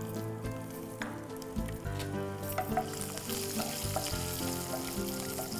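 Oil sizzling in a non-stick kadai as a South Indian tempering of mustard seeds, lentils, curry leaves and garlic fries and is stirred with a spatula, with a few scrapes. The sizzle grows louder about halfway through, over soft background music.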